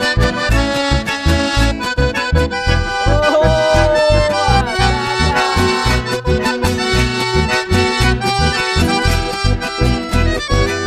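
Accordion-led band music, with no singing, over a steady beat pulsing in the bass. A held note bends downward about four seconds in.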